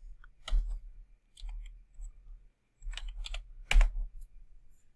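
Typing on a computer keyboard: scattered keystrokes and short runs of keys, irregularly spaced, with the sharpest stroke a little before the end.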